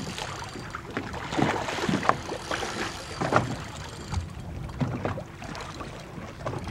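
Irregular water splashing and sloshing at the side of a small boat as a big red drum on the line thrashes at the surface.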